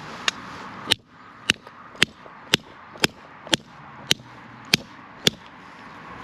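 About ten sharp metal-on-metal strikes, roughly two a second, as channel-lock pliers are hammered against a soldered copper pipe fitting to try to crack the solder joint.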